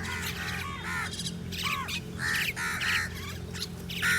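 A flock of crows cawing, many harsh calls overlapping one after another, with the loudest about two, three and four seconds in. A steady low hum runs underneath.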